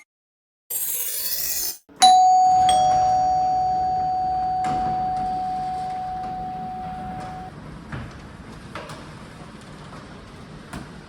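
A short whoosh, then a single bright bell-like ding about two seconds in that rings and fades away over about five seconds, followed by a few faint taps.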